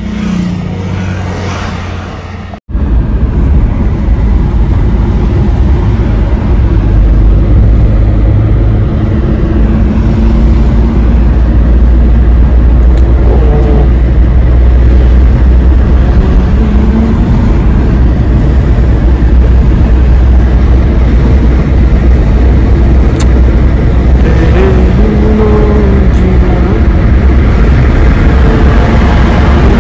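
Suzuki car driving at highway speed, heard from inside the cabin: a loud, steady, deep rumble of road, wind and engine noise. A short, quieter stretch of road sound cuts off abruptly about three seconds in, and the louder rumble takes over.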